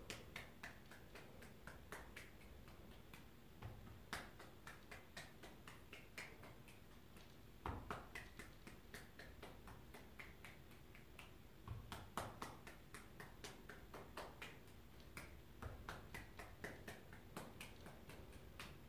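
Faint, quick pats of a cupped hand tapping down the shoulder and arm, about three a second, in a qigong self-massage.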